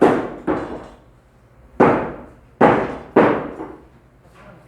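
Meat cleaver chopping mutton: five heavy chops at uneven intervals, each a sharp blow that dies away quickly.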